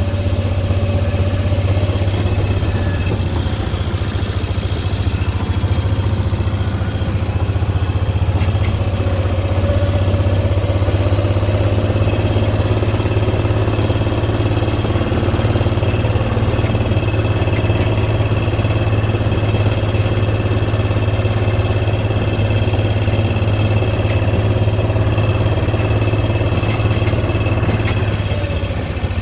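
Engine of a slowly driving vehicle running steadily, a constant low hum with little change in pitch.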